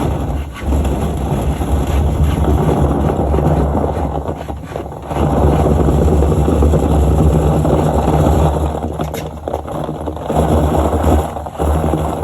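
A motor running steadily with a low hum, dipping briefly a few times.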